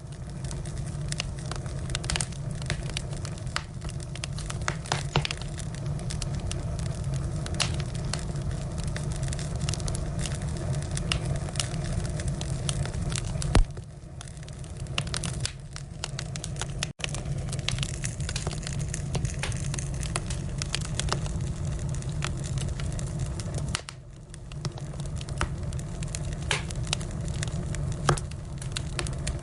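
Firewood burning: irregular sharp crackles and pops over a steady low rumble, briefly quieter twice.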